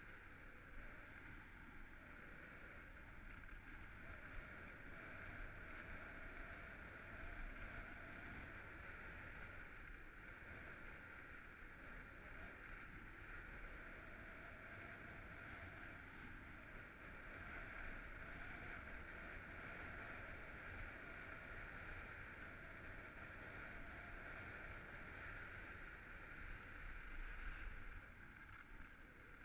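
Skis gliding on packed, groomed snow: a steady faint hiss, with a low rumble of wind on the microphone.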